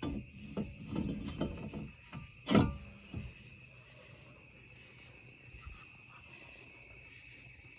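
A handful of short knocks and clatter from handling brake parts and tools in the first few seconds, the loudest about two and a half seconds in. Crickets chirp steadily throughout.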